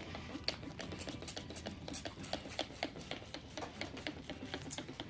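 Faint rubbing with many small, irregular clicks, several a second: tung oil being wiped by hand onto a black walnut tabletop.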